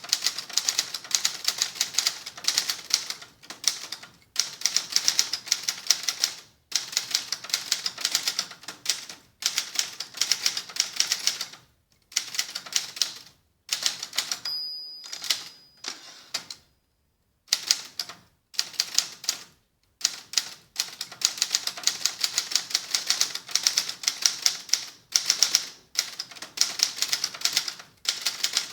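Adler Gabriele 25 manual typewriter typing in quick runs of sharp key and typebar strikes, with short pauses between runs. About halfway through, the margin bell rings once as the carriage nears the end of a line.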